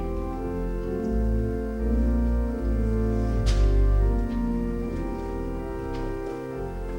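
Organ music: sustained chords over deep bass notes that change every second or so, with a sharp click about three and a half seconds in.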